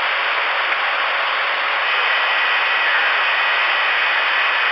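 CRE 8900 ten-meter radio receiving an open channel: a steady rushing hiss of static. Faint steady whistles join in about two seconds in.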